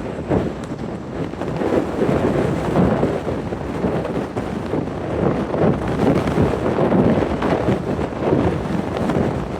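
Strong wind buffeting the microphone, a dense rumbling noise that swells and dips in uneven gusts.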